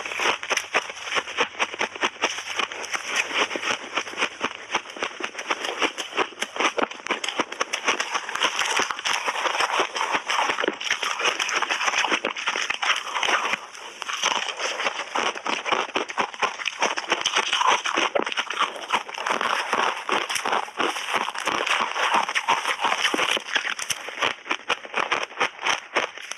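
Crunching and chewing of mouthfuls of purple and white shaved ice and crushed ice chunks: a dense, continuous crackle of small crunches.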